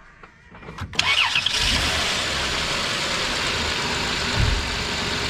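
2001 Chrysler Town and Country V6 engine starting about a second in and settling into a steady idle. It now runs smoothly, without the rough, shaking misfire that a faulty number 3 ignition coil had caused.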